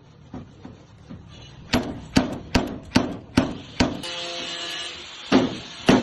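Hammer blows on sheet metal for body repair (panel beating), about two to three a second in a steady rhythm. They start about two seconds in, stop briefly, and resume near the end.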